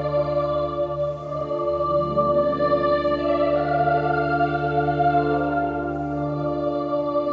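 Organ playing slow, sustained chords over a deep held bass note, with the middle voices shifting to new notes about two seconds in.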